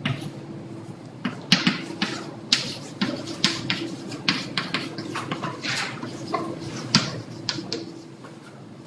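Chalk writing on a blackboard: a quick, irregular run of chalk taps and short scratches as words are written, over a steady low hum.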